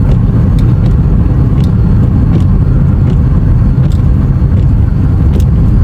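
Car driving in strong wind: a loud, unsteady low rumble of road and wind noise, with a few faint scattered ticks.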